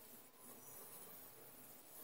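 Near silence, with only faint rubbing of a hand working over an embossed copper lid.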